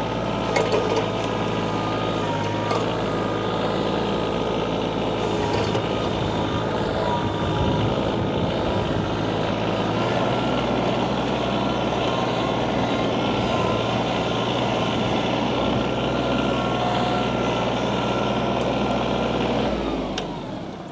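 Kioti CK2510 compact tractor's three-cylinder diesel engine running steadily as the tractor drives and works the loader, its pitch stepping up slightly about halfway through. Near the end the engine is shut off and winds down.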